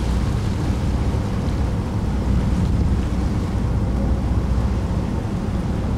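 Boat engine running steadily in a low rumble, with wind buffeting the microphone and sea water washing along the hull.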